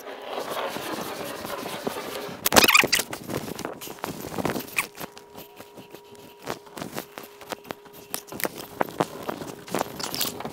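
Handling noise from finish-carpentry hand tools, a caulk gun and then a steel tape measure: scattered clicks and scrapes with one sharp knock about two and a half seconds in. A faint steady hum comes in about halfway.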